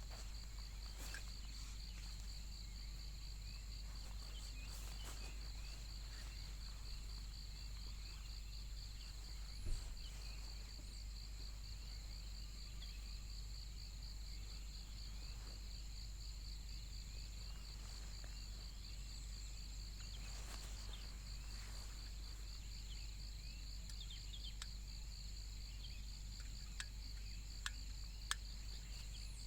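Crickets trilling in a steady, rapidly pulsing chorus over a low rumble, with a single soft thump about ten seconds in and a few light clicks near the end.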